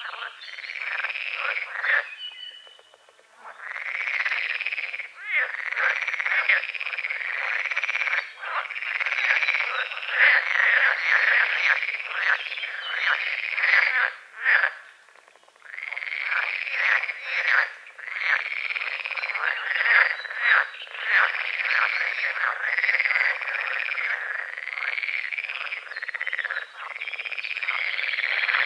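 Chorus of frogs croaking, many calls overlapping in a dense, continuous racket. It falls away briefly about two to three seconds in and again about halfway through, then resumes.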